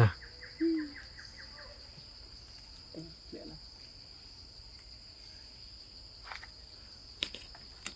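Steady high-pitched drone of forest insects, with a fast ticking trill in the first second and a half and a few sharp clicks later on.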